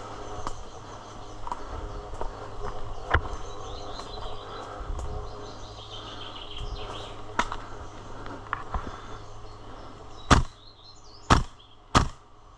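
Three sharp shots from an airsoft gun near the end, about a second and then half a second apart, over a faint outdoor background of rustling and small clicks.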